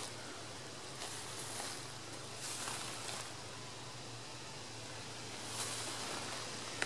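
Footsteps in dry fallen oak leaves, a few irregular rustling steps with pauses between them.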